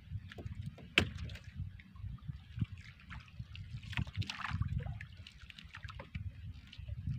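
Sea water sloshing against the hull of a small outrigger boat, over a low rumble, with a sharp click about a second in and a brief splashy hiss around four seconds in.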